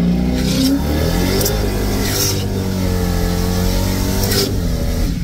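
Ram pickup's Hemi V8 heard from inside the cab, under acceleration: the engine note rises, dips about a second and a half in, then climbs and levels off. A few brief hissing bursts sound over it.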